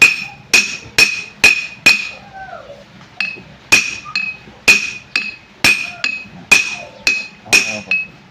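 Hammer blows on steel, driving a bearing into a diesel engine gearbox, each strike ringing with a clear metallic tone. About two strikes a second, five, a pause of about a second, then about a dozen more.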